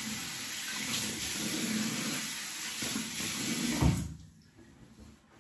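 Bathroom tap running into a sink as a steady rush of water, shut off about four seconds in with a short knock.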